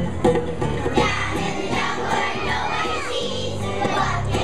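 A group of young children singing together over instrumental backing music; their voices come in about a second in.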